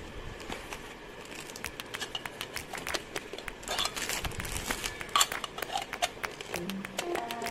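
Hard plastic parts of a toy mixer clicking and knocking irregularly as they are handled, the clear jar set on the base and the lid pressed on, with some rustling of plastic wrap. A short melody of background music starts near the end.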